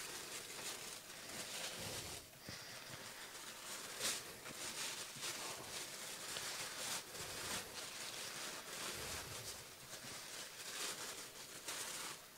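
Faint rustling and small scattered clicks and taps over a steady hiss, like items being handled on a table.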